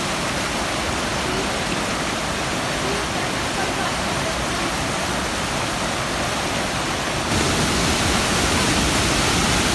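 Steady rushing water, a waterfall or fast river, an even roar with no rhythm. About seven seconds in it becomes louder and deeper.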